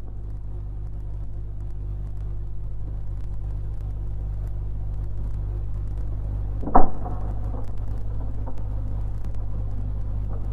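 Low, steady rumbling drone of an old film soundtrack, slowly swelling in loudness, with one short, sharp hit about seven seconds in.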